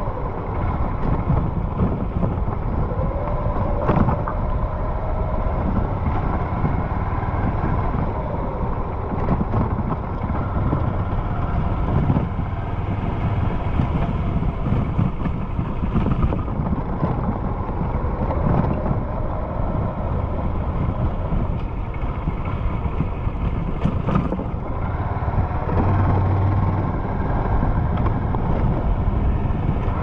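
A 2015 Honda CG 150 Fan's single-cylinder engine running under way, with steady wind rush on the microphone and a few sharp knocks; the engine pitch rises and falls slightly a couple of times.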